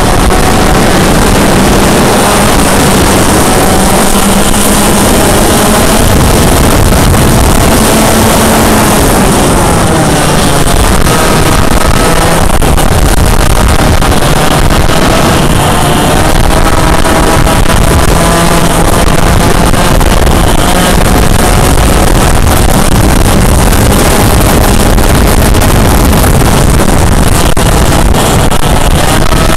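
Yamaha KT100 100cc two-stroke kart engine at racing speed, loud, its revs climbing along the straights and dropping back into the corners again and again. Some wind noise on the microphone.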